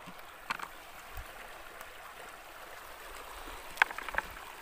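Steady rush of flowing river water, with a few short sharp clicks and scrapes of a hand tool on bedrock: one about half a second in and a louder cluster near the end.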